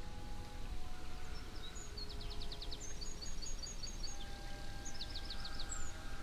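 A songbird singing two short phrases of quick repeated high notes, about two seconds in and again near five seconds, over a steady low background rush.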